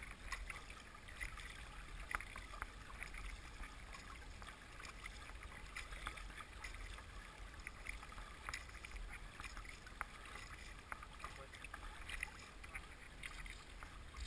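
Faint water splashing and fizzing along the bow of a small paddle boat riding a fast river current, with scattered small crackles of spray and a steady low rumble underneath.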